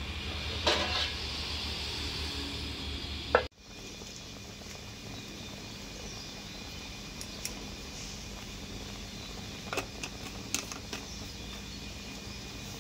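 Pork pieces stewing in broth in a wok: a steady bubbling simmer with scattered small pops. Early on, before an abrupt cut, there are a couple of sharp clicks from the pan.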